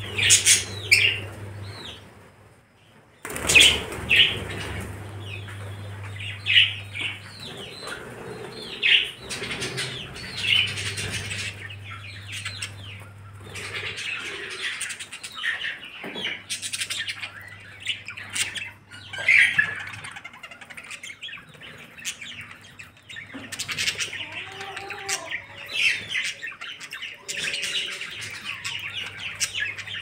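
A flock of budgerigars chattering, with many overlapping short chirps and warbles and occasional wing flapping; the chatter drops away briefly about two seconds in.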